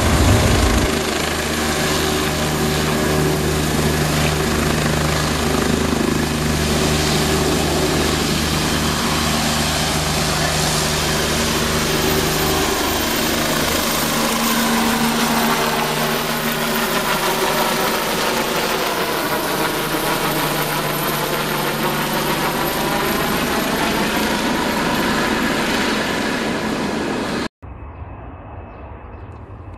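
Bell 429 twin-turbine helicopter flying past overhead: a steady rotor and turbine drone with low beating tones that fade about halfway through, while a higher rushing whine sweeps down and back up in pitch as it goes by. It cuts off suddenly near the end to a much quieter outdoor background.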